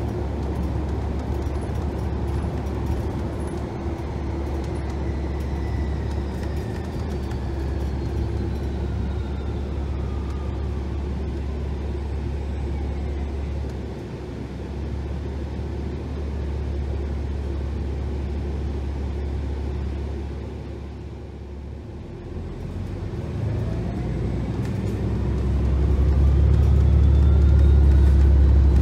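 2018 New Flyer XDE60 hybrid articulated bus in motion, heard from inside: a steady low rumble under a high electric-drive whine that falls in pitch as the bus slows. About two-thirds in it goes quieter, then the whine rises again and the rumble grows louder as the bus pulls away.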